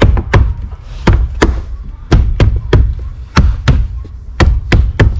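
About a dozen sharp knocks in quick twos and threes: a hand striking a plastic interior trim panel to snap its clips home.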